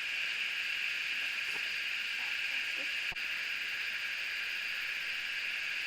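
Steady, unbroken drone of an insect chorus, high-pitched and even, with a faint voice and a small click partway through.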